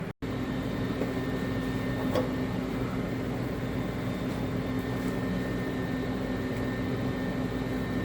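Steady machine hum made of several fixed low tones, like a fan motor running, with a faint click about two seconds in.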